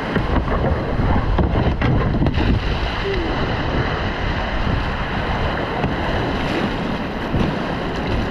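Whitewater rapids rushing close by, with wind buffeting the microphone. In the first couple of seconds a plastic whitewater kayak scrapes off a rock ledge and drops into the river, then the rush of the current carries on steadily.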